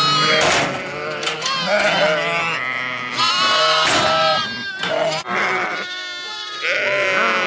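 Ewes and young lambs bleating, many calls overlapping at different pitches, with a short lull a little past the middle.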